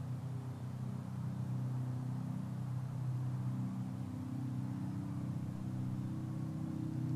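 A low, steady droning hum of several held low tones, which shift slightly in pitch about three seconds in.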